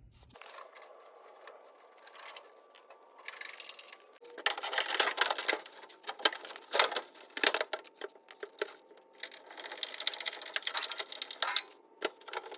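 Rapid clicking, tapping and rattling of hand tools and metal parts while an HVAC blower motor and its capacitor are fitted, with two busier stretches in the middle.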